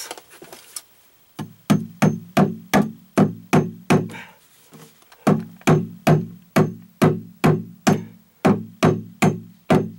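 Claw hammer driving a cable staple over Romex into a hard wooden stud: a steady run of sharp knocks, about three a second, each with a short ringing tone from the wood. The hammering stops for about a second near the middle, then resumes.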